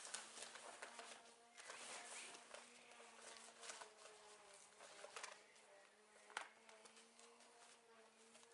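Plastic tarpaulin rustling and crinkling in short bursts as it is pulled and worked over a pole frame. A faint, steady buzzing hum goes on underneath.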